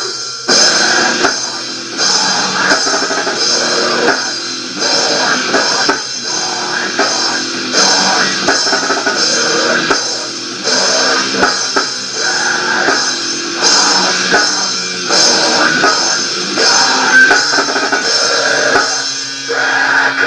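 Rock band playing a demo recording: electric guitar over a drum kit with regular drum hits, with the thin sound of a tape that has neither deep bass nor high treble.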